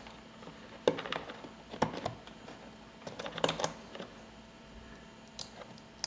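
Small plastic clicks and rattles in short clusters, about a second apart, as a window-switch cable and its connector are pressed into the plastic clip holders on the back of a Tesla Model 3 door panel. The clicks fade to a few faint ones near the end.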